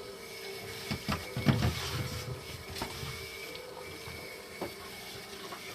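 Steady hum of a running hemodialysis machine, with a cluster of knocks and clicks from parts being handled about a second in and a few more later.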